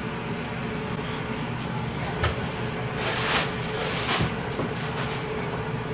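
Rustling and a few light knocks from a person moving close to the microphone, loudest about three to four seconds in, over a steady background hum.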